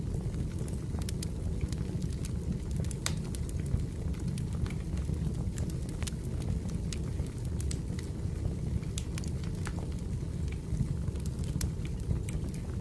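Firewood burning: a steady low rumble of the fire with irregular sharp crackles and pops from the wood.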